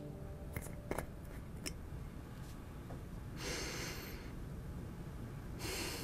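A screw-top cosmetic cream jar being opened by hand, with a few small clicks of the lid in the first two seconds. Then two short sniffs as the cream is smelled, one in the middle and one near the end.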